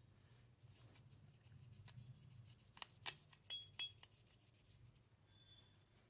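A cloth rubbing over the base of a CPU cooler, wiping its contact plate clean, soft and quiet, with a run of small ticks and a few louder clicks about three to four seconds in. A faint low hum lies underneath.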